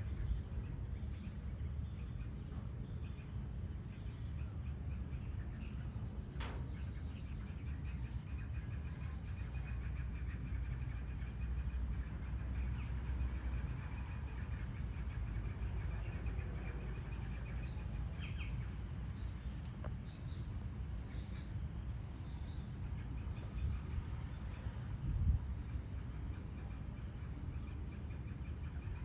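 Outdoor dusk ambience: a steady high insect drone with crickets chirping, over a constant low rumble. There is a sharp click about a quarter of the way in and a brief low thump near the end.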